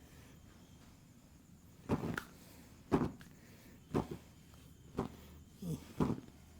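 Massage strokes of the hands striking the body, one about every second, starting about two seconds in.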